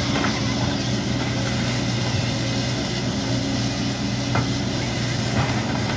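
Diesel engine of a JCB tracked excavator running steadily as the machine works, with a few faint knocks.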